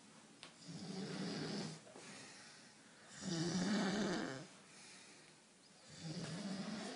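A sleeping man snoring: three snores about two and a half seconds apart, each a low buzzing rattle lasting about a second and a half, the middle one the loudest.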